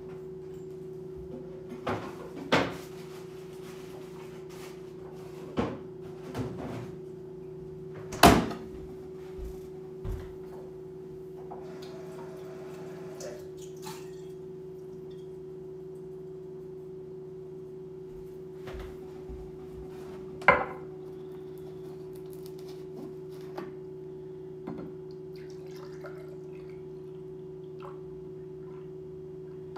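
Kitchen handling sounds over a steady low hum: a series of sharp knocks and clunks, the loudest about eight seconds in and another about twenty seconds in, as milk is fetched and a plastic gallon milk jug is set on the counter, then milk pouring into a glass near the end.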